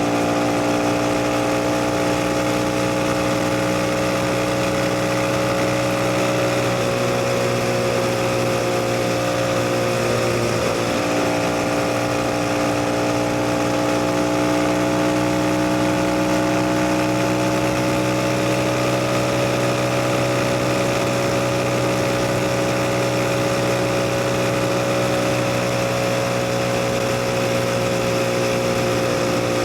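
CF Moto 250NK's single-cylinder engine running at a steady pace under way, its pitch dipping briefly and rising again about ten seconds in, with a steady hiss of wind over it.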